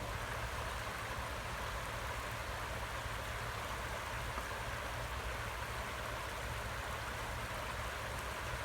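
Steady rushing of flowing river floodwater, an even hiss with a low rumble underneath.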